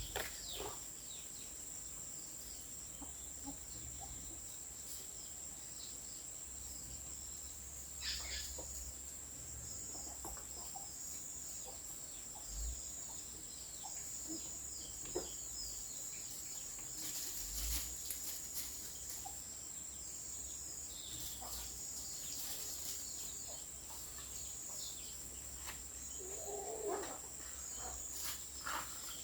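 Outdoor ambience: a steady high-pitched hum, scattered light clicks and knocks, and occasional short bird calls, the clearest a warbling call near the end.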